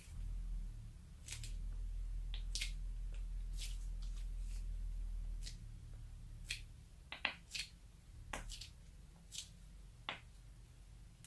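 Scattered sharp clicks and small pops as thick slime liquid is squeezed from a plastic piping bag into a tray of liquid, over a low steady rumble that eases off about halfway through. The clicks come thickest a little past halfway.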